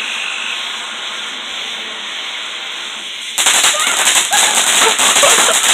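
Ground fountain firework hissing steadily. About three and a half seconds in it suddenly breaks into loud, dense crackling as it throws out crackling sparks.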